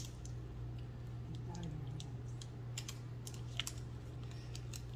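Crinkly candy-bar wrapper being tugged and twisted as it is struggled open, giving irregular short crackles and clicks over a steady low hum.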